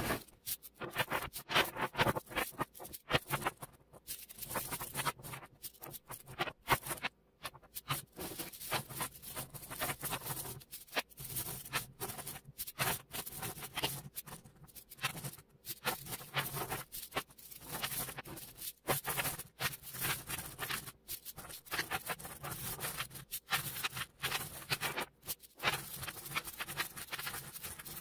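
Small neodymium magnet balls clicking and clattering in quick, uneven runs as strands of them are snapped down onto each other into flat hexagonal layers, with a few short pauses.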